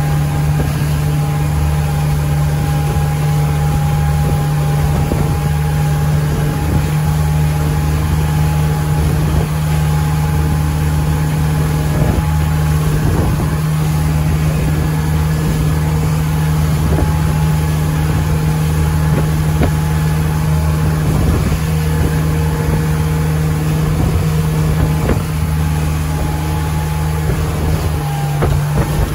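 Motorboat engine running steadily at towing speed, a constant low drone, with the rush of water and wake under the hull.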